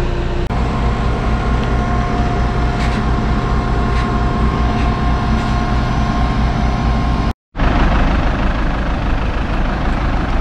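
Diesel engine of a mobile truck crane running steadily while it lifts a boat, with a steady high whine over the low engine sound. The sound breaks off for a moment about seven seconds in.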